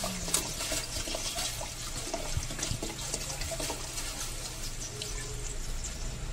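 A steady stream of clear cooking rice wine poured from a glass bottle, splashing into a pot of broth.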